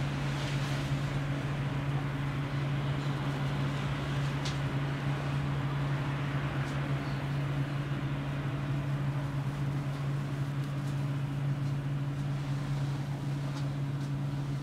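Electric tram heard from the front of the car as it moves slowly along its track: a steady low electrical hum over an even running noise, with a few faint ticks.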